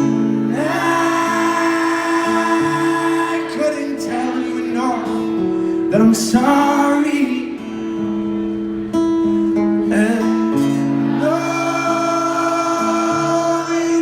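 Live solo performance: a male voice singing slow phrases over sustained acoustic guitar chords.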